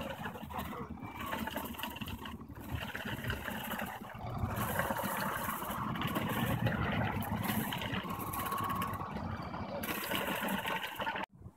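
Pole-mounted powered olive harvester running steadily, its head working in the branches of an olive tree to shake the olives down.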